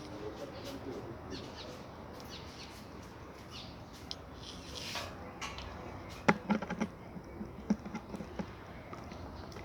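Light rain falling with a steady hiss, with scattered drips and taps. A few sharper, briefly ringing drips land in the second half.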